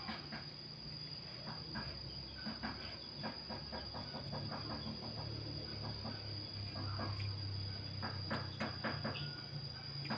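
Close eating sounds of a man eating rice with a spoon from a plate: many short clicks and smacks, some in quick runs, over a steady high-pitched insect drone.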